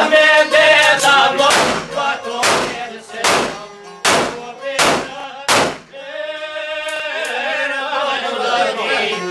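Several men singing an Albanian folk song in unison to long-necked lutes. In the first six seconds six sharp, loud beats land, coming a little faster each time; after that the voices hold one long note that grows louder toward the end.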